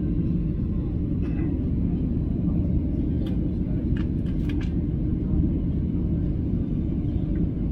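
Airliner cabin noise in flight: a steady low rumble of engines and airflow heard from a window seat. A few faint clicks come about three to four and a half seconds in.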